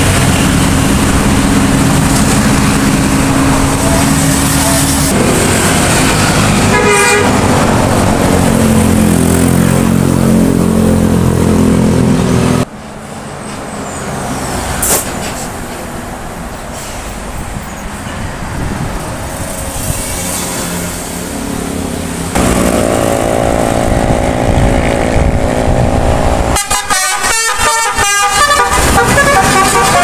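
Multi-tone 'telolet' bus horns playing short stepping tunes over bus engines and road traffic. Midway the horns stop and only quieter traffic is heard; a horn tune starts again later and pulses rapidly near the end.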